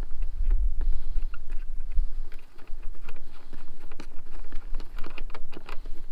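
Wind buffeting the microphone with a low rumble, over a run of small plastic clicks and rattles as hands work the plastic air-filter cover on a Cub Cadet zero-turn mower's engine. The clicks come thickest in the last couple of seconds.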